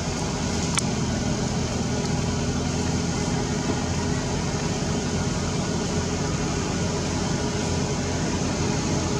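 Steady outdoor background rumble and hiss with a low, even hum underneath, like a distant engine or traffic, and a single faint click about a second in.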